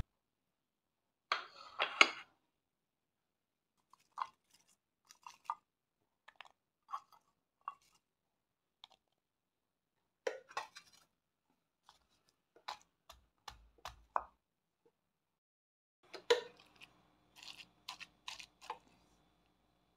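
Garlic cloves, candlenuts and ginger being crushed and ground with a pestle in a stone mortar: scattered short knocks and crunches with quiet gaps between them.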